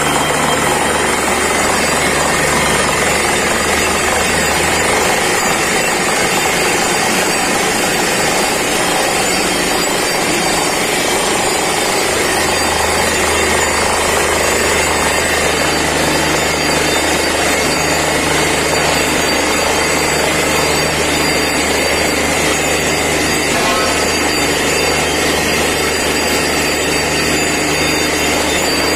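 Borewell drilling rig drilling with compressed air: a steady pounding clatter from the down-the-hole hammer over the drone of the rig's engine and compressor. The low engine hum fades for several seconds in the first half, then comes back.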